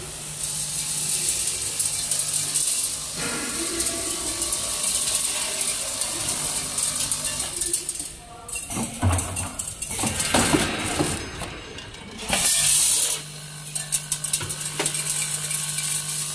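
Automatic screw bagging machine running: a steady hum under rapid mechanical clicking and clatter, with a rougher, louder stretch in the middle.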